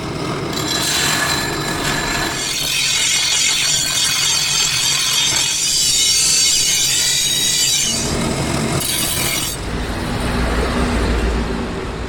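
Steel being ground on an abrasive wheel, a harsh scraping hiss, as the chopper blade is shaped or sharpened.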